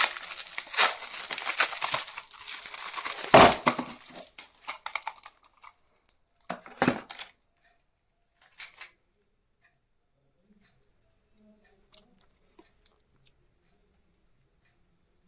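Keyboard packaging crinkling and tearing as it is unwrapped, with a loud knock about three seconds in. Two more handling bumps follow, then it goes mostly quiet with a few faint ticks.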